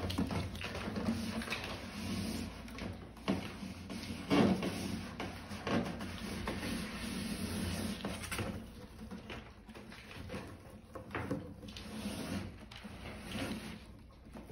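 Puppies scrabbling and bumping about on a laminate floor and against a cardboard box: scattered knocks, scrapes and rustles, with two sharper knocks about three and four and a half seconds in.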